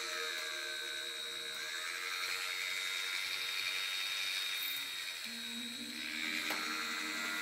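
Small handheld rotary tool running at high speed with a thin whine as its bit drills small holes through a plastic model kit part; the motor's pitch drops about five seconds in as the bit takes load.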